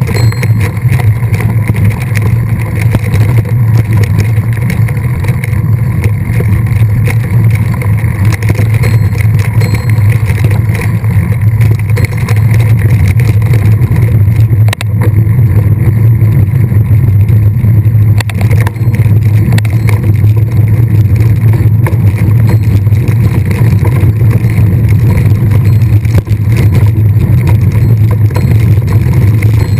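Steady loud rumble of wind buffeting the microphone and tyre noise from a camera carried on a mountain bike being ridden along the trail, unbroken throughout.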